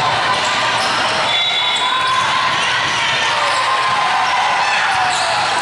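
Indoor volleyball rally: the ball is struck and hit back and forth, over shouting from players and spectators in a large gym hall.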